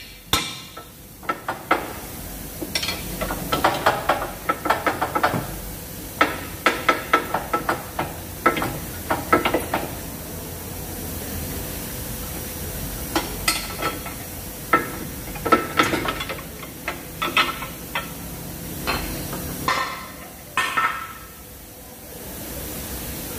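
Metal tools clinking and clanking on the steel lower control arm and its bolts of a Mazda CX-5 as a wrench and bar work the bolts loose, in irregular bunches of sharp, ringing clicks with quieter gaps between.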